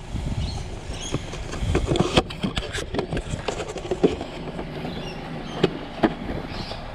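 Car moving slowly with a steady low road and engine rumble, overlaid by a scatter of sharp clicks and knocks.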